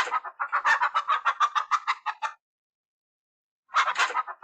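Hen clucking, a quick string of short clucks that stops about two seconds in and starts again near the end.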